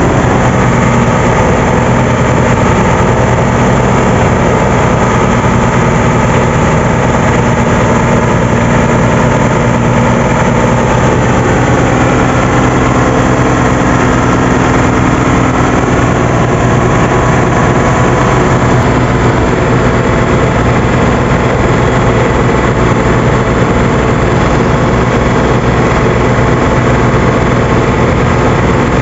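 Engine of a motorized outrigger boat (bangka) running steadily under way, a loud even note with a low hum.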